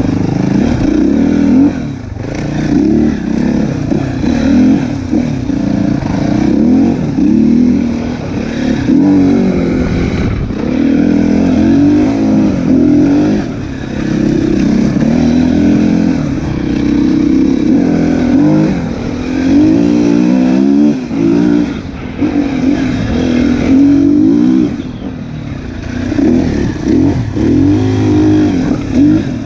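Enduro dirt bike engine heard close from on board, revving up and down constantly as the throttle is worked, with short dips where the rider backs off.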